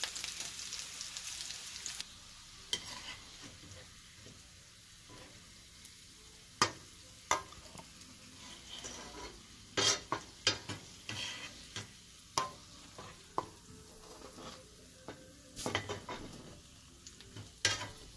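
Sliced carrots sizzling in hot oil in a frying pan, strongly for the first two seconds and then more quietly. A spatula scrapes and clacks sharply against the pan a dozen or so times as the carrots are stirred and scooped out.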